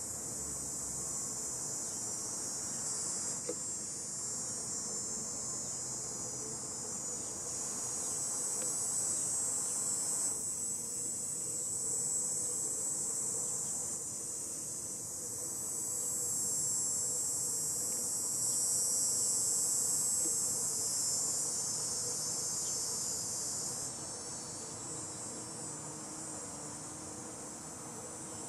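Cicadas singing: a steady, high-pitched shrill drone that swells and eases in slow waves. It is loudest through the middle stretch and drops back a little near the end.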